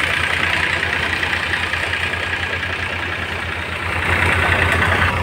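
Massey Ferguson 7250 tractor's diesel engine running steadily under load, driving a PTO-powered thresher whose drum and blower add a steady whirring. It grows louder about four seconds in.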